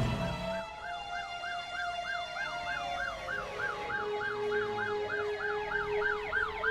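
Emergency vehicle sirens: one yelping rapidly, about four rises a second, with slower rising and falling siren sweeps and steady tones beneath it.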